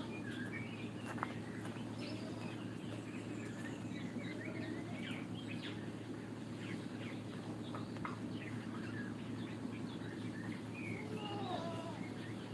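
Several small birds chirping and calling, short rising and falling notes scattered throughout, over a steady low background hum.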